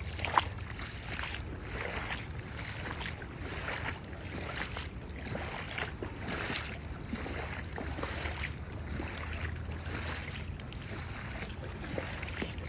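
Footsteps sloshing through shallow floodwater at a walking pace, about one step every half second or so. A steady low rumble of wind on the microphone runs underneath.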